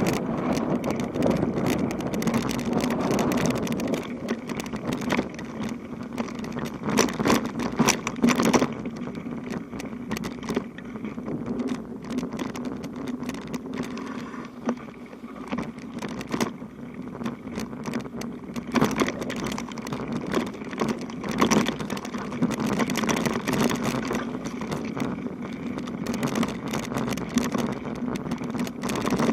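Bicycle being ridden, with frequent irregular rattles and clicks over a steady low hum of rolling noise.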